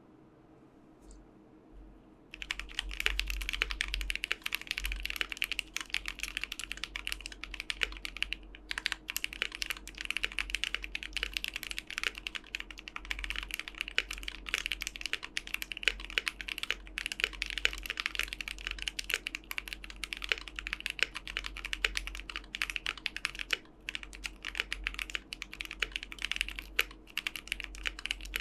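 Typing on a Keychron Q3 aluminium mechanical keyboard with Momoka Shark tactile switches: a fast, continuous run of keystrokes starting about two seconds in, with a couple of brief pauses.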